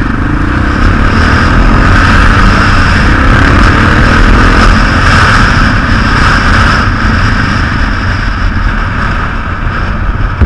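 Yamaha XT600 single-cylinder motorcycle engine pulling away and climbing in pitch over the first couple of seconds, then running steadily, with a heavy rush of wind noise over a helmet-mounted microphone.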